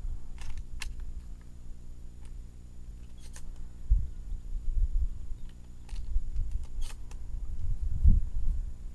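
Wind buffeting an outdoor microphone, a low rumble that comes in gusts, strongest about four seconds in and again near the end, with a few faint scattered clicks.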